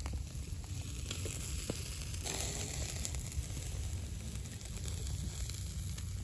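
Pork grilling on a wire rack over a charcoal fire: scattered crackles and pops from the coals and dripping fat, with a brief hiss about two seconds in, over a steady low rumble.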